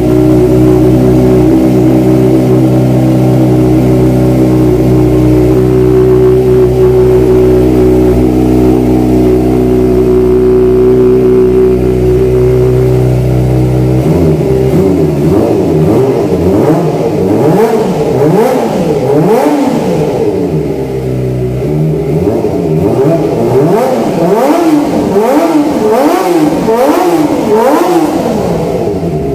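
Kawasaki ZX-25R's 250 cc inline-four through a Pro Speed aftermarket exhaust, running steadily at first. After about fourteen seconds it is revved in repeated quick throttle blips, each rising and falling in pitch, roughly one a second.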